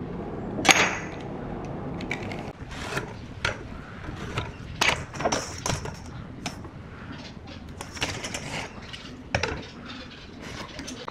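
Steel rule and steel square being handled on a pine board: irregular light clinks, taps and scrapes as the tools are set down, slid and lined up, the sharpest about a second in.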